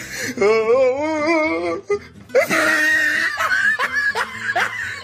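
Meme sound-effect clips: a voice holds a long, wavering note for about a second and a half, then after a short break comes laughter in short, repeated bursts.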